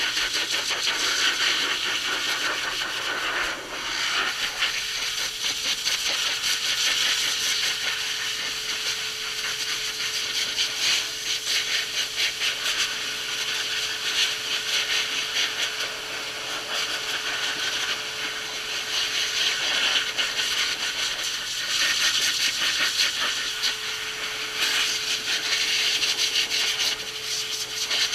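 Dog grooming dryer blowing a steady rush of air through its hose nozzle onto a wet coat, with a constant motor hum underneath; the airflow's loudness wavers slightly as the nozzle moves.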